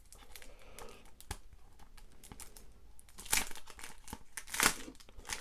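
Clear resealable plastic bag with an adhesive strip being peeled open and handled, the thin plastic crinkling throughout, with two louder crackles about three and four and a half seconds in.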